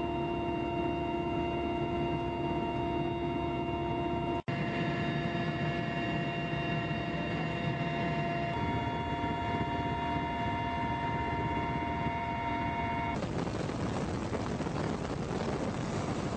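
Steady machine noise: a rumble with a high, multi-tone whine. There is a brief dropout at a cut about four and a half seconds in, and near the end the whine stops, leaving a plain rushing noise.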